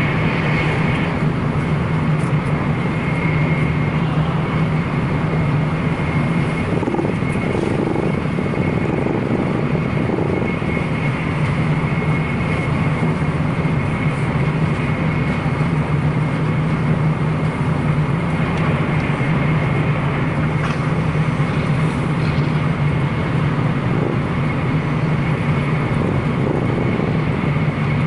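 Shinkansen bullet train running at speed, heard from inside the carriage: a steady rumble and hum with a thin high whine over it, unchanging throughout.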